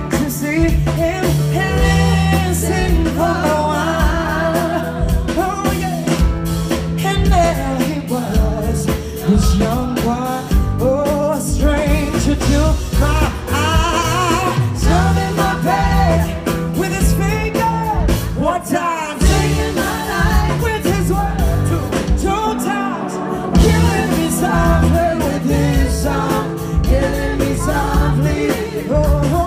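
Live band with a lead singer, heard from the audience in a concert hall: a sung melody over sustained bass, with keyboards, guitar and drums, playing without a break.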